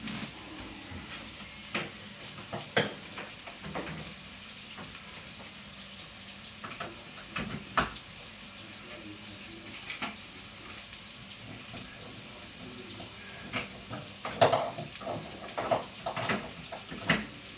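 Food frying in a pot on the stove with a steady sizzle, broken by scattered clinks and knocks of pots, dishes and utensils being handled.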